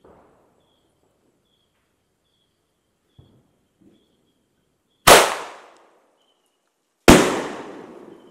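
Liberty 3-inch aerial firework shells bursting in the sky: two loud sharp bangs about two seconds apart, about five and seven seconds in, each trailing off in a long rolling echo. A couple of faint pops come before them.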